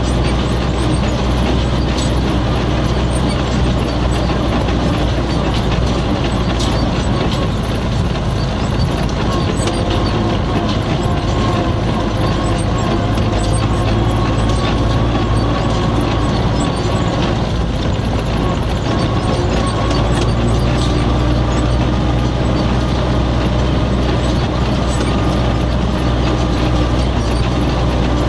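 MTZ-80 tractor's four-cylinder diesel engine running steadily under load as it pulls two loaded grain trailers, heard from inside the cab, with constant rattling of the cab and its fittings as it bumps along.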